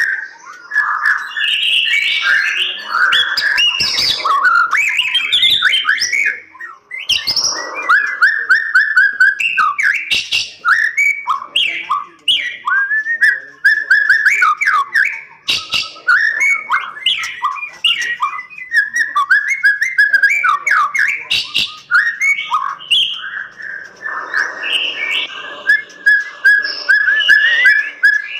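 White-rumped shama singing vigorously: a long, varied run of rapid whistled phrases, sliding notes and trills, with a brief pause about seven seconds in.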